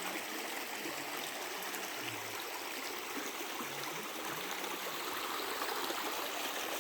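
Creek water running steadily over rocks, an even rushing and trickling.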